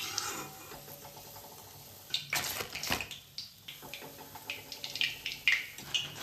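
Hot oil in a steel wok sizzling softly as fried pakoras are lifted out with a wire skimmer, with several sharp clinks of the metal skimmer and spatula against the wok, a few about two to three seconds in and a cluster near the end.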